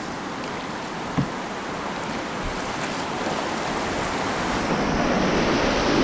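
Rushing whitewater of a river weir, growing steadily louder as the open canoe closes on it and runs into the rapid. A single sharp knock about a second in.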